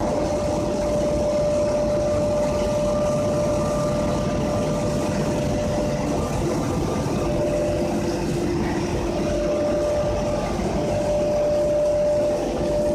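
Large-capacity grain dryer machine running steadily: a continuous mechanical rumble with a constant whine over it.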